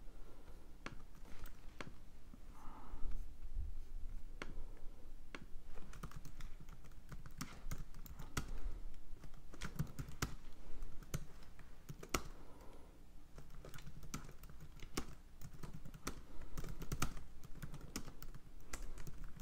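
Typing on a computer keyboard: a few scattered clicks for the first few seconds, then quick runs of keystrokes as text is typed in.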